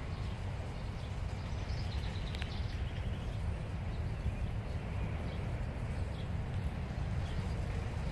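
Wind buffeting the microphone as a steady low rumble, with a few faint bird chirps.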